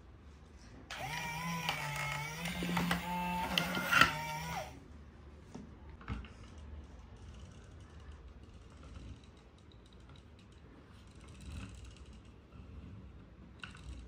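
Remote-control toy excavator's electric motor and plastic gearbox whining for about four seconds as the arm lifts, the pitch shifting with the load. Afterwards only faint clicks and knocks of the plastic toys being handled.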